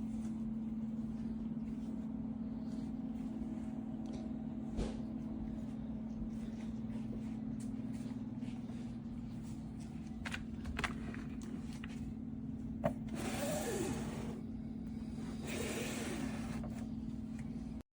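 A steady low hum with a few sharp clicks and two short noisy bursts near the end; it cuts off suddenly.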